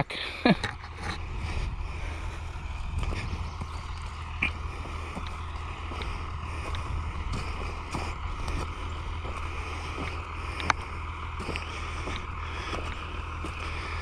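Oliver 1755 tractor engine running at a steady pace, a low rumble under wind and rustling noise, with scattered light knocks and rattles and one sharp click late on.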